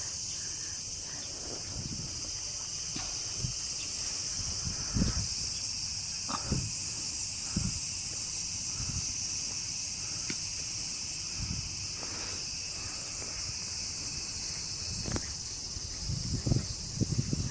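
Steady high-pitched chorus of insects droning without a break, with a few low soft thumps scattered through it.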